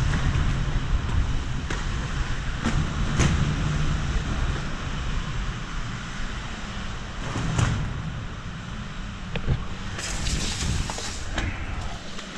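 Skateboard wheels rolling over a smooth concrete car-park floor, a steady low rumble broken by scattered sharp clicks. About ten seconds in, a brief hiss as the rider puts a gloved hand down and slides on the concrete to slow and stop.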